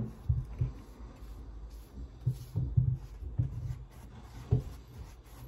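Paintbrush dabbing and stroking matte medium over paper glued onto a painting: a series of dull, low thumps at uneven intervals as the brush presses on the surface.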